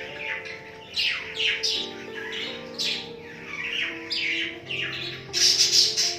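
Budgie chicks chirping in quick, repeated short calls, loudest near the end, over background music with sustained notes.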